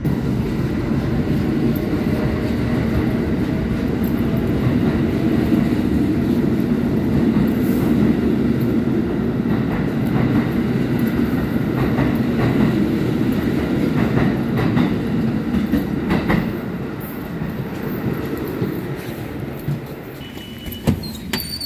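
New York City subway train running beside an elevated station platform: a loud, steady noise with wheel clatter, which eases off about sixteen seconds in.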